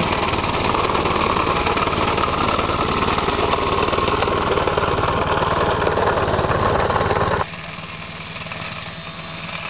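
Small engine of a two-wheel walk-behind mower running steadily under load while mowing grass. About seven and a half seconds in, the loud running drops away suddenly, leaving the engine fainter.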